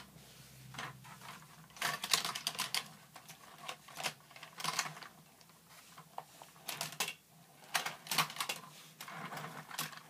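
Irregular clicks and clatter of die-cast Hot Wheels cars knocking against each other and against the plastic lanes of a toy launcher truck as they are pushed and handled.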